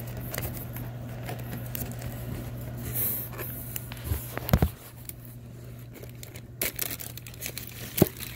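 Clear plastic bag crinkling and rustling as it is handled inside a cardboard box, with two sharp knocks, one about halfway through and one near the end, over a low steady hum.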